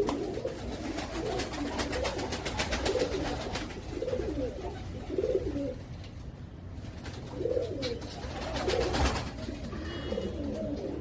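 Domestic pigeons cooing, low repeated coos about once a second, with a patch of light clicking rustle in the first few seconds and again briefly about nine seconds in.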